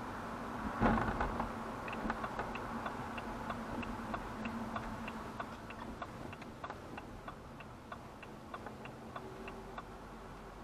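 Car turn indicator ticking inside the cabin, about three clicks a second, starting about two seconds in and fading toward the end, over a low engine and road hum. A single louder knock comes about a second in.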